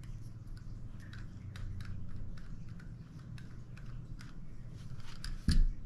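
Small, irregular clicks and taps as a bolt is backed out of a KISS Sidewinder rebreather part by hand and tool, over a steady low hum. There is a louder thump about five and a half seconds in.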